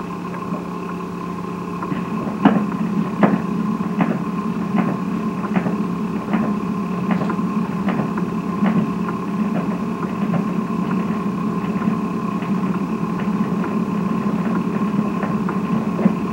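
Steady hum and surface noise of an old disc recording playing with no music on it. A sharp click repeats a little over once a second from about two seconds in, typical of a scratch on a turning record.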